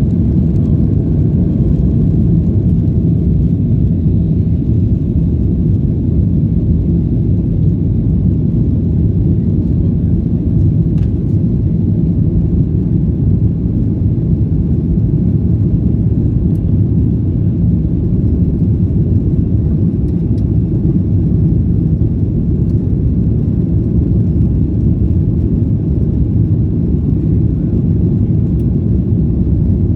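Cabin noise inside a Boeing 737-800 airliner: the CFM56 turbofan engines and airflow make a loud, steady, deep rumble that holds level throughout.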